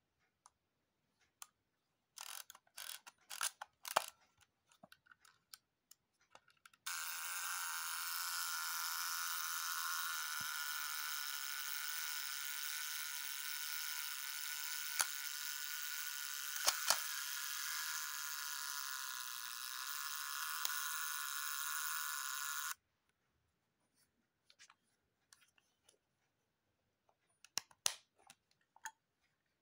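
Clicks from the mechanism of a Contax D SLR camera being worked by hand, then a steady, high-pitched whirring for about sixteen seconds that starts and stops abruptly, then a few more clicks near the end.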